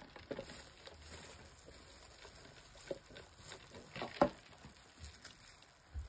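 Quiet eating noises: a scattering of short mouth clicks and smacks while chewing, the loudest about four seconds in.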